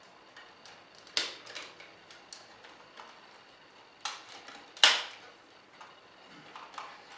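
Hard plastic toy parts of a Power Rangers Megazord clicking and knocking as pieces are fitted together, with scattered small ticks and a few sharper clicks. The loudest is a snap a little before the five-second mark.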